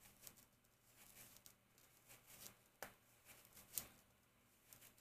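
Faint, scattered clicks and soft taps as a knife cuts through a peeled plantain held in the hand and the slices drop into a plastic bowl. The sharpest clicks come a little before three and four seconds in.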